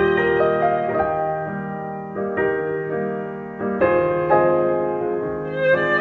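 Recorded music with piano notes, played back through TANNOY Stirling TW loudspeakers driven by a TRIODE TRV-88SE amplifier. New notes come in at a moderate pace, each dying away.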